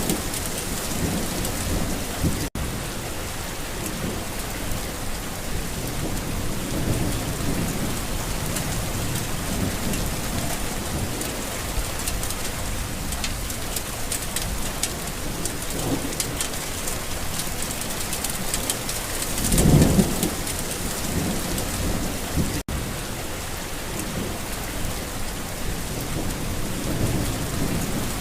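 Steady heavy rain with thunder rumbling low in the background, one louder roll of thunder about two-thirds of the way through. The sound cuts out for an instant twice.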